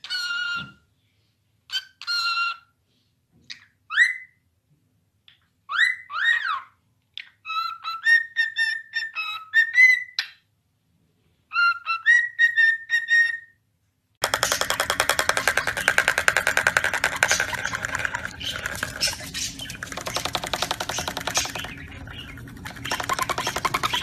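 Cockatiel whistling in short separate phrases of clear notes that glide up and down, with gaps of silence between them. A little over halfway through, loud music takes over.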